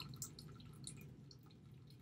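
Very quiet, with faint scattered light ticks from a stylus tapping and scratching on a pen tablet as a word is handwritten, over a low steady background hum.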